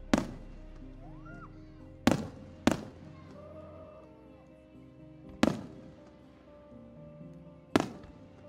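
Aerial firework shells bursting with sharp booms, each trailing a short echo: one right at the start, two close together about two to three seconds in, one about five and a half seconds in and one near the end. Music with sustained, slowly changing notes plays underneath.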